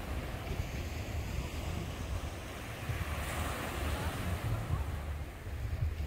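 Sea waves washing ashore, swelling about halfway through, with wind buffeting the microphone in a low rumble.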